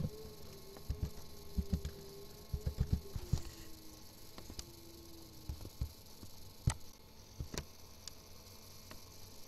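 Computer keyboard keys tapped in a quick run of clicks over the first three seconds or so, then two sharper clicks about a second apart a little past the middle, the mouse clicking through the dialog. A faint wavering hum sits under the typing and fades out about halfway through.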